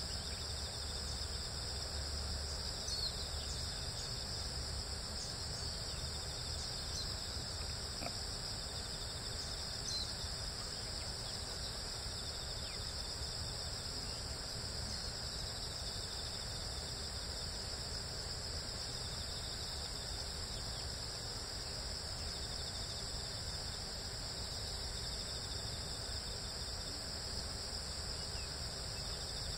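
Steady high-pitched chorus of insects over a faint low background rumble.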